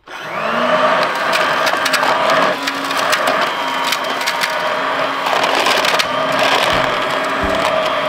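Electrolux Trivac Broom stick vacuum cleaner switching on, its motor spinning up to a steady whine over the rush of air. Many sharp clicks run through it as grit and small stones from the dirt rattle up through the floor nozzle.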